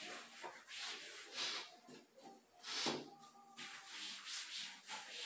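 Cloth wiping the shelves of a wooden shoe rack in repeated rubbing strokes, with one louder knock about three seconds in.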